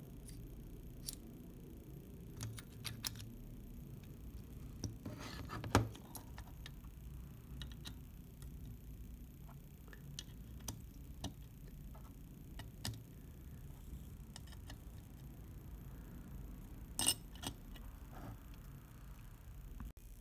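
Sporadic light clicks and clinks of small metal parts of a Rolleiflex Standard camera (a gear assembly and the body casting) being handled. The sharpest clicks come about six seconds in and again near seventeen seconds.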